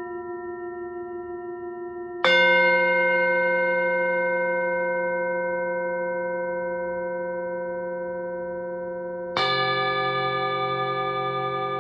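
Singing bowls struck twice, about two seconds in and again about seven seconds later. Each strike rings on with a long, slow fade and a wavering pulse, and the second strike is a different-pitched bowl. A previous bowl is still ringing at the start.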